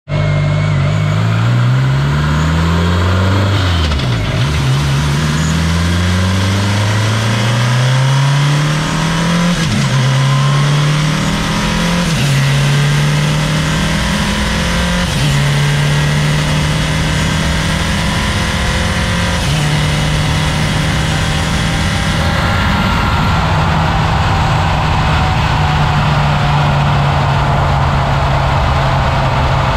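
1.8T turbocharged four-cylinder car engine accelerating hard through the gears. Its pitch climbs in several steps, each ended by a gear change, then holds steady at high speed, heard from under the front of the car with heavy air and road rush over the microphone.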